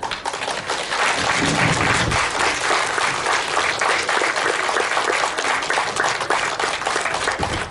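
Audience applauding, a steady, loud clapping of many hands.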